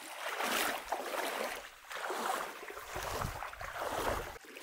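Feet sloshing through shallow seawater, a watery splash with each wading step, with some wind rumble on the microphone about three seconds in.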